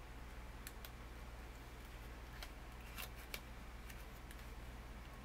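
Origami paper crackling faintly as fingers fold and press its layers together: a few scattered soft clicks and crinkles over a steady low hum.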